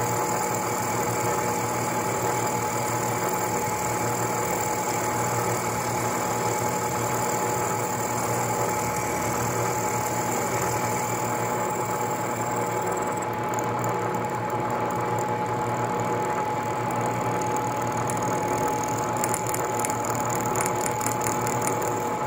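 Vertical milling machine running, its end mill cutting a slot along a metal shaft: a steady mechanical running sound with a constant whine.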